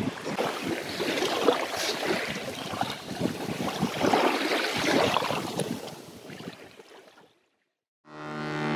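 Wind and sea surf, with gusts buffeting the microphone, fading out about seven seconds in. After a short silence, a steady low tone with many overtones begins near the end.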